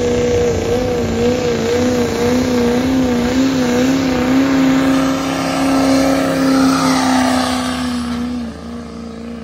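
Diesel pickup truck engine running hard under load while pulling a weighted sled, its pitch wavering up and down. The pitch and loudness drop near the end.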